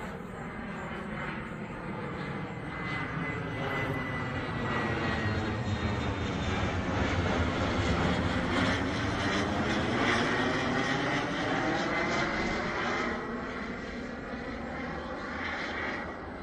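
Aero L-39 Albatros jet trainer flying overhead, its single turbofan engine making a steady jet rush with a thin high turbine whine running through it. The sound swells to its loudest about eight to ten seconds in, then eases off as the jet moves away, with a phasing swirl as it passes.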